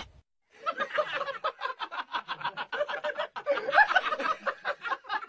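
A person laughing hard in a long, rapid run of short laughs, beginning about half a second in.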